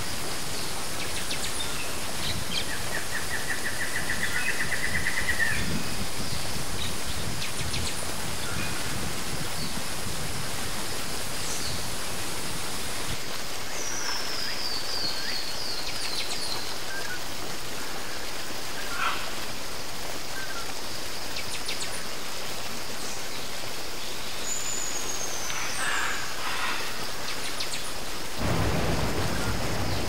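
Steady rush of running water, with birds calling over it: a rapid trill a few seconds in, a falling series of notes near the middle, and scattered chirps later. The deeper part of the water sound thins a little before halfway and comes back fuller near the end.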